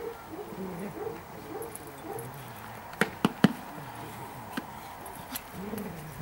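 Black giant schnauzer growling low as it grips and tugs a helper's bite sleeve in protection work, with three sharp smacks in quick succession about three seconds in.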